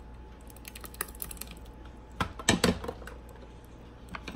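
Light clicks and a few knocks of kitchen utensils as thick blended corn is poured from a blender jar into a mixing bowl. A short cluster of knocks about two seconds in is the hand mixer tipping over onto the counter.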